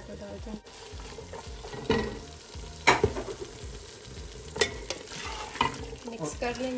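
A chickpea and spice masala frying in a pan, sizzling as it is stirred. Several sharp knocks of the utensil against the pan, the loudest about three seconds in.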